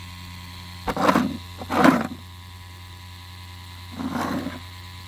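Rebuilt diaphragm pump running with a steady hum, with three short gurgling surges about one, two and four seconds in as it sucks water and air through its intake, still pulling a vacuum. Its diaphragm is partly torn, so it runs weakly with some cavitation.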